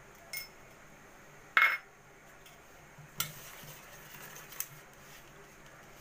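Metal utensils clinking against a stainless steel bowl, with one loud ringing clink about one and a half seconds in, then a wire whisk stirring dry flour in the bowl, scraping and tapping against the side.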